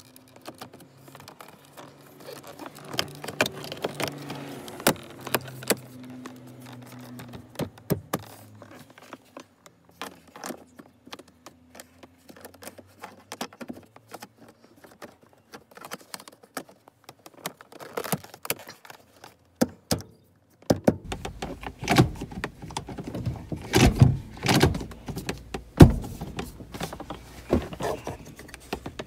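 Plastic center-console trim and shift boot of a 2012 Kia Optima being handled and pressed into place around the gear shifter: scattered clicks and rattles, with louder knocks and handling noise in the last eight seconds or so.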